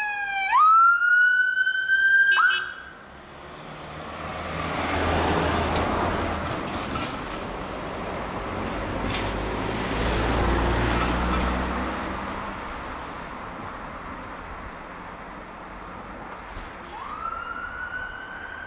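Siren on a fire service Toyota Hilux rescue pickup wailing down and back up, then cutting off sharply about two seconds in. The pickup and its boat trailer then pass with engine and tyre noise and a low rumble, and near the end the siren winds up again, fainter.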